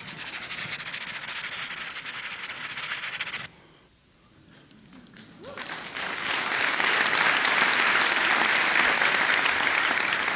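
A steady hiss that cuts off suddenly about a third of the way in, then an audience applauding, swelling up and holding steady.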